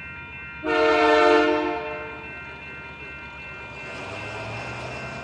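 Diesel locomotive air horn sounding one long blast of about a second and a half, starting about half a second in, as a warning for the grade crossing. Near the end the low rumble of the approaching train rises.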